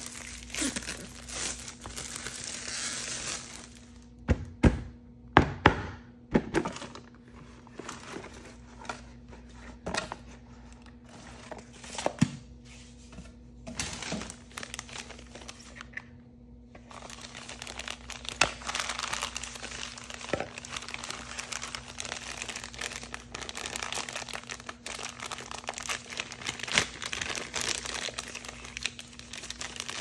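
Thin plastic wrapping crinkling as it is peeled off a large hollow plastic toy egg, with several sharp hollow plastic knocks about four to seven seconds in as the egg shell is handled and opened. After a brief pause near the middle, blue plastic toy packets crinkle and tear steadily as they are handled and opened.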